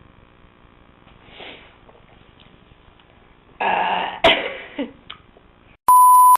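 A person's forced, throaty burp attempt, a rough sound lasting about a second, about three and a half seconds in, after a fainter try before it. Near the end a short, steady electronic beep sounds.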